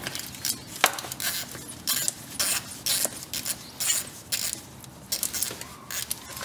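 Metal tool clinking: a socket on a short extension being fitted to and worked on a distributor cap screw, with irregular sharp metallic clicks and short scrapes every half second or so.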